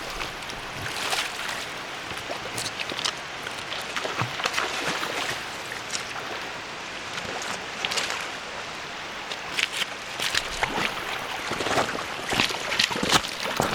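River water running steadily at the water's edge, with short splashes and sloshes now and then, most of them near the start and toward the end.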